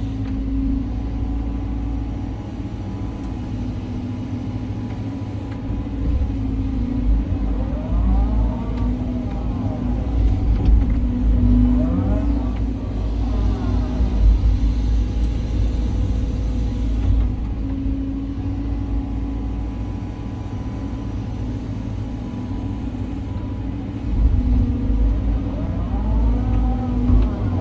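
Caterpillar 323 hydraulic excavator working, its engine running steadily under load. A whine rises and falls three times as the hydraulics work.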